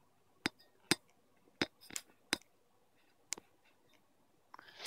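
A handful of separate sharp plastic clicks and snaps, about six over a few seconds, from a trading-card blister pack being handled as the coin is popped out of it.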